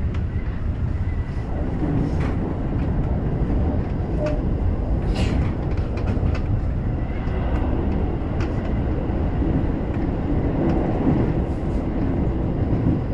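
Electric commuter train running, heard from just behind the driver's cab: a steady low rumble of wheels on track, with scattered sharp clicks as the wheels pass over rail joints and points.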